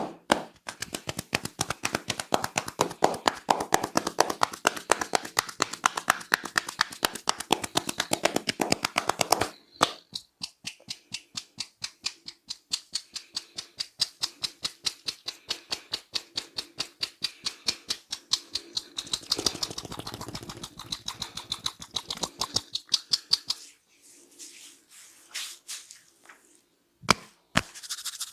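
Rapid, even hand strikes of a percussive head massage, several a second, the tone changing about ten seconds in. They stop near the end, followed by a few scattered taps and a single sharp snap.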